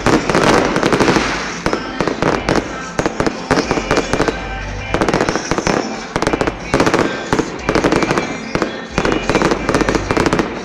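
Fireworks display: a dense run of bangs and crackling bursts.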